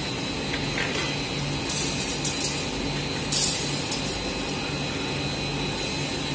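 Electric wire butt-welding machine humming steadily as it joins two wire ends, with short hissing bursts from the weld, the loudest about three and a half seconds in.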